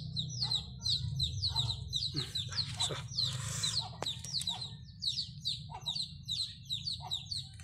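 Small birds chirping in a quick, continuous series of short, falling high notes, over a steady low hum.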